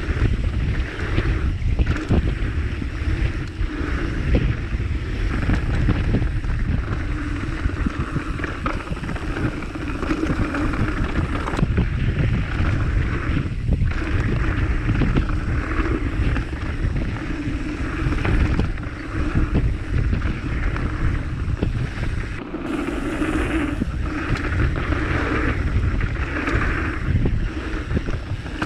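Wind buffeting the microphone over a steady rushing rumble, uneven from moment to moment.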